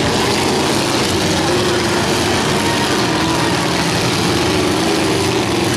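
Several demolition derby cars' engines running and revving together, a loud continuous din whose pitch wavers up and down.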